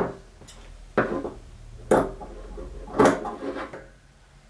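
Large fabric shears snipping through heavy dress fabric while cutting out a neckline: four sharp snips about a second apart.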